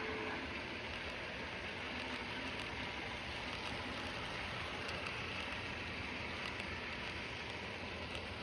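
Steam locomotive running: a steady rushing hiss of steam and running noise with faint clicks, starting to die away near the end.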